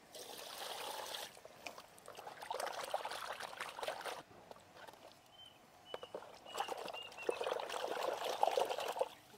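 Water pouring and splashing in three spells, with quieter pauses between, as snakehead fish heads are rinsed by hand.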